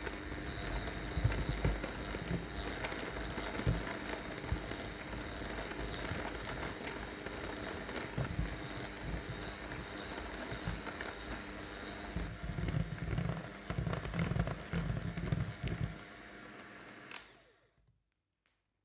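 Electric hand mixer running, its two wire beaters creaming butter and powdered sugar in a glass bowl, a steady motor hum with irregular low thuds. It switches off near the end.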